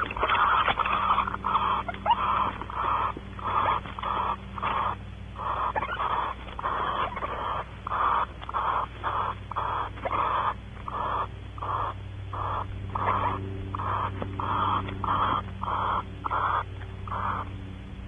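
Barn owl giving its rasping, hiss-like snoring call over and over, about two a second.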